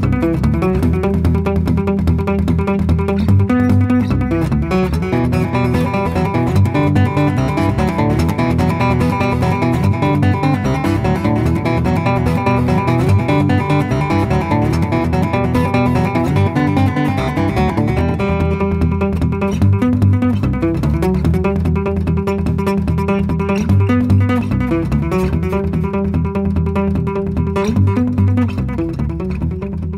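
Solo fingerstyle acoustic guitar instrumental music: a steady, dense run of plucked notes.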